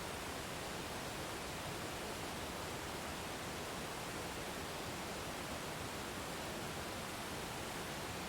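Waterfall rushing in a steady, even wash of white-noise-like sound.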